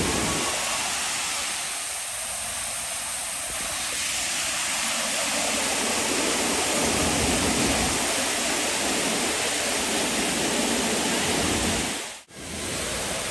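Waterfall pouring: a steady, loud rush of falling water, broken once near the end by a brief drop like a cut between shots.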